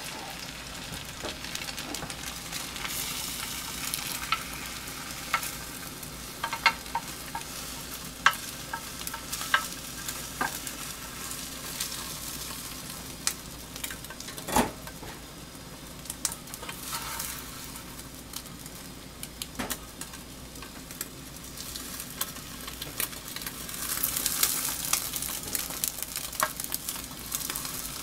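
Beaten egg sizzling in a rectangular tamagoyaki pan over a gas flame, with chopsticks clicking and scraping against the pan now and then. The sizzle swells for a few seconds near the end.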